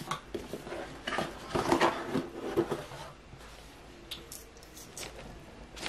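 A cardboard gift box being opened and its paper lining handled: a flurry of rustling and scraping between about one and three seconds in, then a few quieter rustles and ticks.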